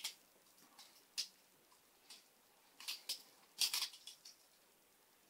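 Titanium balisong (butterfly knife) being flipped: its handles and latch click and clack against each other in a string of short, sharp, irregular clicks, loudest in a quick cluster a little past the middle.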